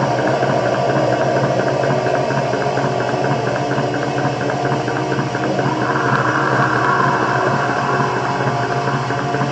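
Raw, lo-fi black metal: heavily distorted guitars over fast, driving drums in a dense, steady wall of sound. A little past halfway the guitar part shifts and the sound turns brighter.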